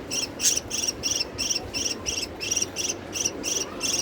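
Insect chirping steadily, about three short, high chirps a second, with one sharp click about half a second in.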